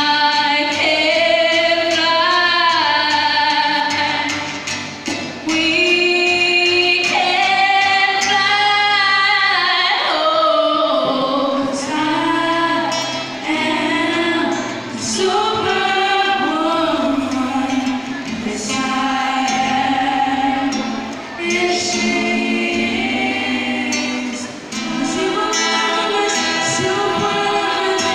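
Teenage girls singing a song together into microphones, amplified through a hall PA, with melodic phrases and held notes over sustained low bass notes.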